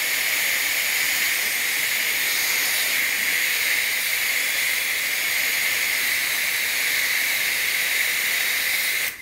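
Hair dryer blowing hot air steadily onto a car's front badge to soften the glue beneath it: a rush of air with a high whine over it. It cuts off right at the end.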